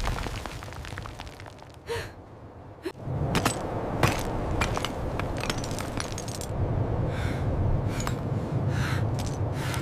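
Ice cracking and breaking sound effects: a few separate cracks at first, then from about three seconds in a low rumble with many sharp cracks scattered through it.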